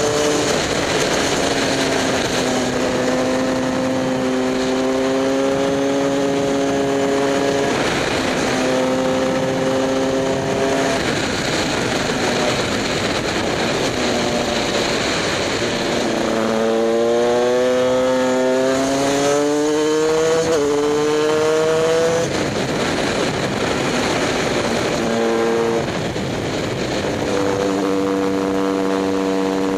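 KTM EXC 125 two-stroke engine pulling the bike along at road speed, heard onboard from a helmet camera with a rush of wind. It holds a steady note for long stretches, then just past the middle climbs in pitch several times with short drops between as it shifts up through the gears.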